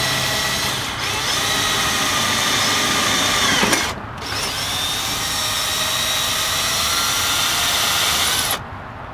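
Cordless drill running in two long spells of about four seconds each. The motor winds down and stops just before the halfway point, spins up again a moment later, and cuts off near the end.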